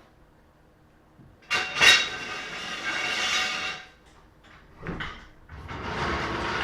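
Power impact wrench run in two bursts, the first about two seconds long and the second starting about five and a half seconds in, spinning lug nuts onto a wheel before they are torqued by hand.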